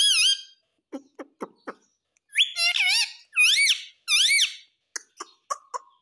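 Indian ringneck parakeet making high, squeaky calls that bend up and down in pitch: one at the start, then a run of three or four from about two seconds in. A few short clicks fall in the gaps.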